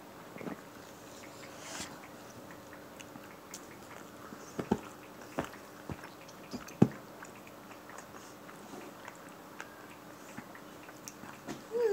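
A person eating salad close to the microphone: biting and chewing, with a few sharp clicks between about four and seven seconds in.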